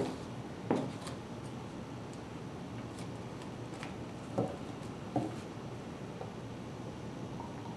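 Plastic bottles handled on a wooden table: a few soft knocks and faint clicks as a vinegar jug and a small juice bottle are picked up, set down and uncapped, over a steady low hiss.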